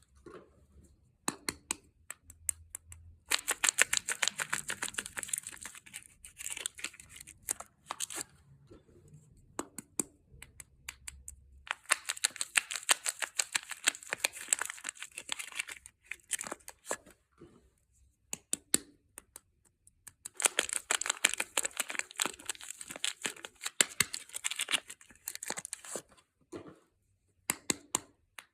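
Soap packaging being torn open and crinkled by hand, in three spells of dense crackling a few seconds each, with scattered light ticks and rustles between them.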